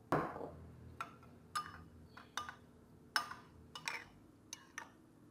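Metal spoon clinking against a ceramic bowl while stirring a fish-sauce dipping sauce: a dozen or so irregular light taps, opening with one louder knock.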